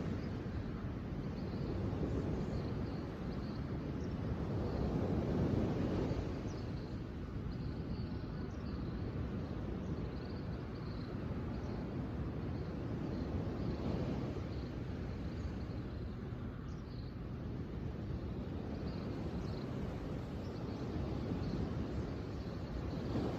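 Outdoor nature ambience: a low rushing that swells and eases every few seconds, with faint high bird chirps throughout.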